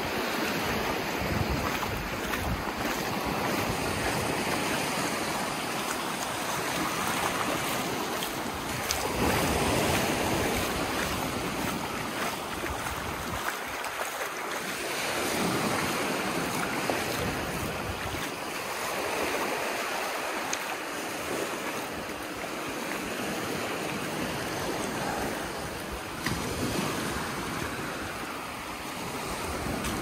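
Small waves washing up and running back over a sandy shore, the surf noise slowly rising and falling every few seconds. Wind rumbles on the microphone.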